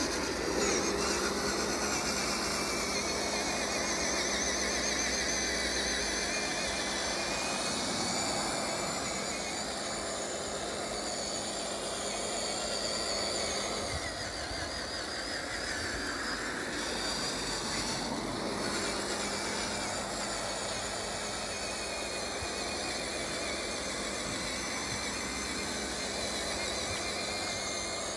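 Electric motor and all-metal geared transmission of an HG P802 radio-controlled 8x8 truck, fitted with extra gear reduction, whining steadily under load as it crawls up a steep wet grass slope.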